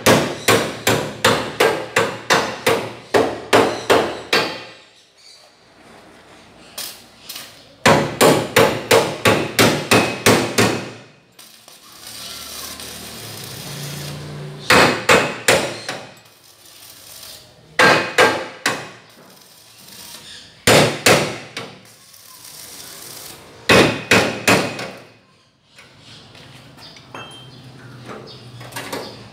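Hammer striking a steel cart frame in quick runs of ringing metal-on-metal blows, about three a second, with pauses between runs. In one pause a few seconds long there is the steady crackling hiss of an electric arc welder laying a weld.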